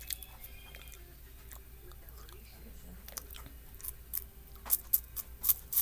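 A Voortman strawberry wafer cookie being bitten and chewed with crisp crunches, which grow louder into a quick run of sharp crunches in the last two seconds.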